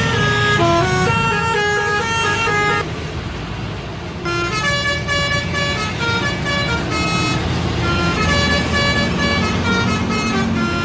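Bus telolet horn playing a fast melody of short stepped notes over the bus engine's steady rumble. The horn breaks off for about a second and a half about three seconds in, then starts up again.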